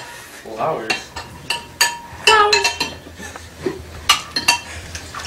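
A metal spoon clinking and scraping in a small ceramic casserole bowl as it stirs, a series of sharp clinks. A voice is heard in short snatches between them.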